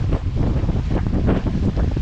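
Heavy wind noise on the microphone, a loud low rumble that rises and falls unevenly, over the rush of water along a sailing yacht under way.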